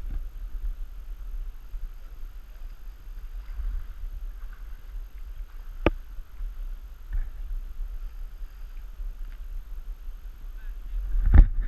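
Faint steady rush of river water under a low rumble, with one sharp click about six seconds in and a couple more near the end.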